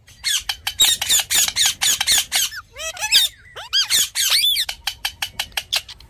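Rose-ringed parakeet screeching: fast runs of short, harsh shrieks, broken about halfway through by a few longer calls that rise and fall in pitch.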